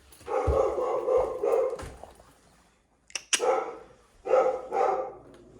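A dog barking in short runs, a cluster in the first two seconds and two more barks a little past four seconds, with a sharp click in between.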